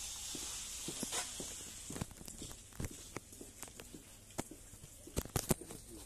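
Irregular footsteps and small knocks on wet pavement, over a faint hiss that is strongest in the first second or so.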